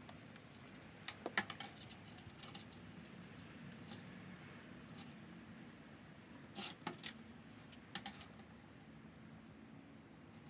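Handling noise: scattered light clicks and taps as parts are handled on the model coach, a few close together about a second in and another cluster about two-thirds of the way through, over a faint steady hum.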